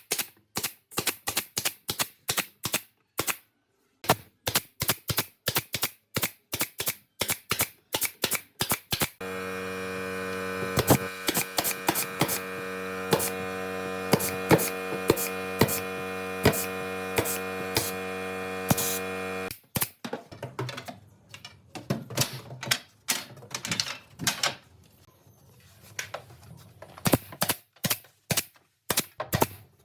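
Quick, regular sharp knocks, about three or four a second, typical of a hammer driving nails into wood. A steady motor hum starts about nine seconds in and cuts off suddenly near twenty seconds, while the knocks go on.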